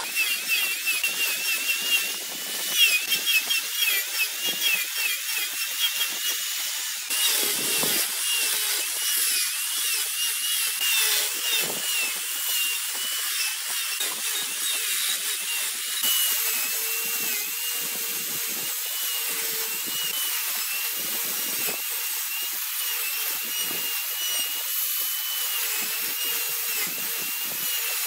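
Angle grinder with a toothed disc cutting into wood spinning on a lathe: a steady high hiss of cutting over the grinder's high motor whine, which wavers up and down in pitch as the disc bites.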